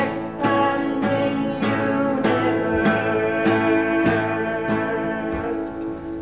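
Acoustic guitar strummed in a steady rhythm, about one strum every 0.6 seconds, in an instrumental passage of a folk song.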